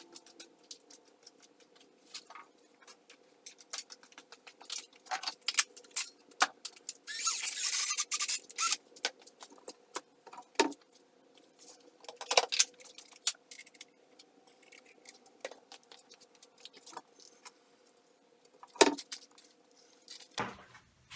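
Tools and workshop items being handled: scattered clicks, knocks and rattles as cordless drills are picked up and set down on a wooden workbench, with a rustling burst about seven seconds in and one sharp knock near the end, over a faint steady hum.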